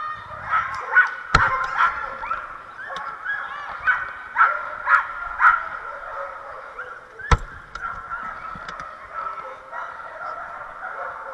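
Many flyball dogs barking and yelping excitedly, high-pitched and overlapping, thickest in the first half. Two sharp knocks cut through, one just over a second in and one after about seven seconds.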